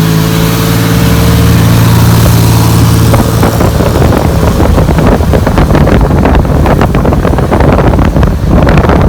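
Chevrolet Opala's engine running loud through its exhaust, holding one steady pitch for about three seconds, then turning into a rougher, choppier sound with crackles.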